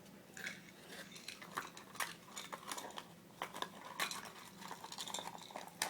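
Light, irregular clicks and knocks of a metal pocket watch and its fittings being handled and set back into its wooden box, over a faint steady hum.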